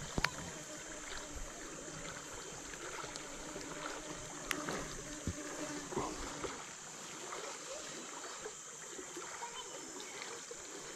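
Steady hiss of flowing river water, with a few soft clicks and rustles as hands mould a bran bait ball around a fishing hook.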